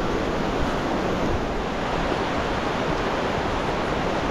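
A shallow, rocky river rushing over rapids: a steady, even rush of water.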